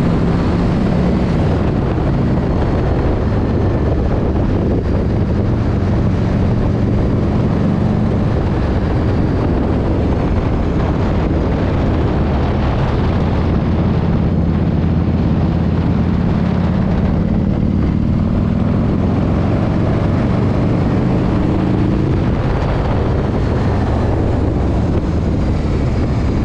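Vehicle engine running steadily, its pitch drifting slowly up and down, under a continuous rumble of road and wind noise.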